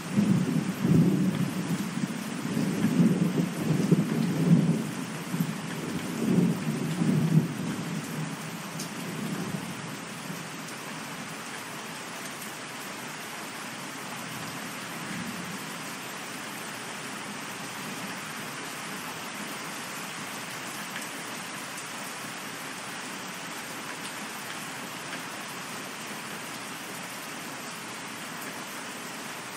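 Steady rain falling, with a long roll of thunder rumbling in waves that dies away about a third of the way in, leaving the even hiss of the rain.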